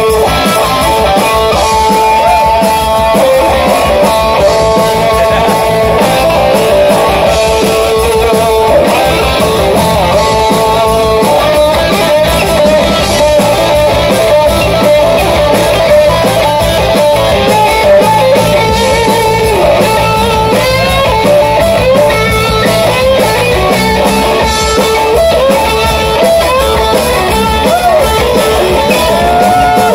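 Live rock band playing through the PA: a Les Paul-style electric guitar over bass and drums, with long held notes in the first part and bending, wavering notes in the second half.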